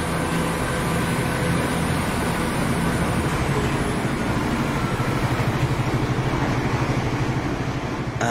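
Train running: a steady low drone with a fast, even pulsing in its second half.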